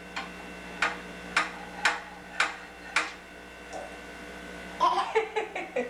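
A series of sharp taps, five of them about half a second apart, then a few quicker taps with a brief voice sound near the end.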